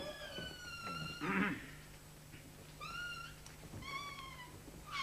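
High-pitched animal cries: one long call that slides slowly down in pitch, then three short calls about a second apart, with a short rough sound between them.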